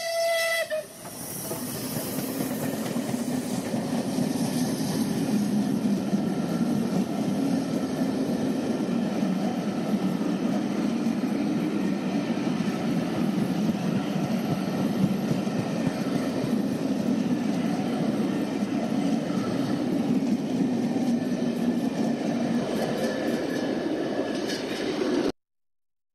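A steam whistle cuts off in the first second. Then LNER A4 Pacific No. 4464 Bittern and its carriages pass at speed: a steady rumble of the train running over the rails for about 24 seconds, ending in an abrupt cut to silence near the end.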